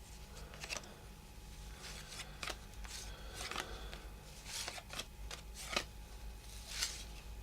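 Cardboard baseball trading cards being slid and flicked off one another one at a time as they are looked through. This gives faint, short, irregular swishes.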